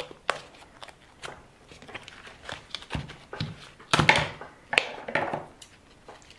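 Hands working on an RC car tyre at a bench: an irregular run of rustles, clicks and short scrapes, loudest about four seconds in.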